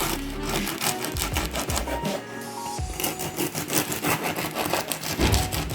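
Crusty ciabatta crust crackling and crunching as the loaf is cut or broken open, a dense run of rapid crisp crackles that thickens in the second half, over background music.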